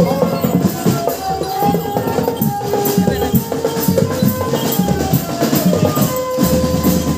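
Marching drum band playing: quick, dense drum strokes under a melody of held notes that step in pitch.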